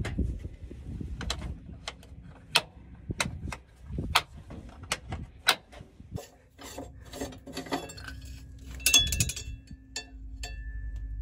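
Sharp clicks and light knocks, a few a second, from hands working the latches of a John Deere combine's plastic air-cleaner housing. About halfway through a faint steady hum comes in, with a brief cluster of rattling clicks near the end.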